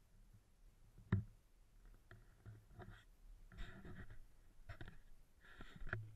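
Faint rustling and knocking of a small action camera being handled and swung about, with one sharp click about a second in.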